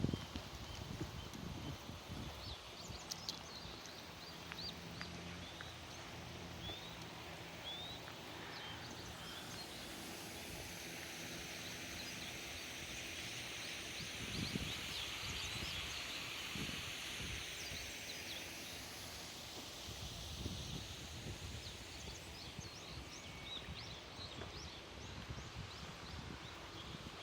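Outdoor ambience: many short bird chirps, scattered low thumps and rustling, and a hiss that swells and fades over about ten seconds in the middle.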